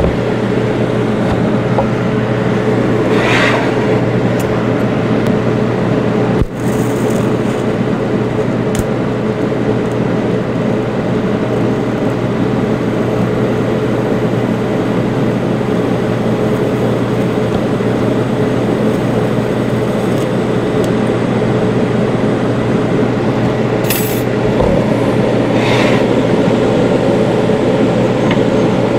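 TIG welding: the welding machine's steady electrical hum with an even hiss while a weld bead is run, broken once by a short click about six and a half seconds in.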